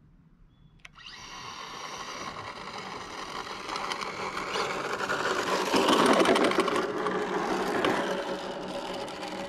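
Electric RC car's brushless motor and drivetrain whirring as the car drives over asphalt, starting about a second in, growing louder as it comes closer, peaking about halfway through and then easing off.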